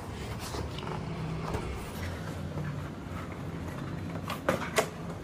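Corrugated cardboard box being handled and its lid lifted, the cardboard creaking and rubbing, with two sharp taps close together near the end. A low hum runs underneath.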